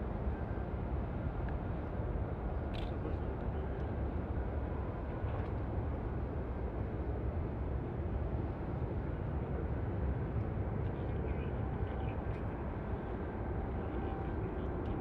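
Jet airliner engines heard at a distance: a steady low rumble with a faint thin whine over it.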